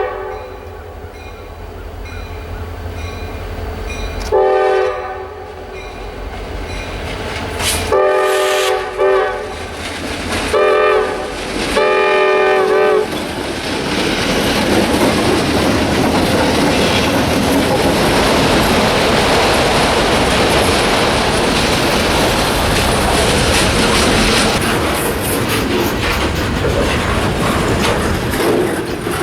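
Locomotive horn blowing the grade-crossing signal: two long blasts, a short one and a final long one. The train then passes close by with a steady rumble and clatter of wheels over the rails.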